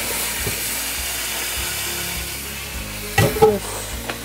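Pot of boiling pasta water poured out over spaghetti in a colander in a stainless steel sink, a steady hissing rush of water with the tap running. The rush thins out, then two loud metal clanks come about three seconds in and a lighter knock near the end.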